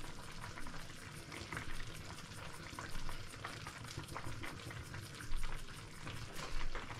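Meat and onions stewing in their juices in a kazan, bubbling and crackling steadily with many small pops and a few louder ticks.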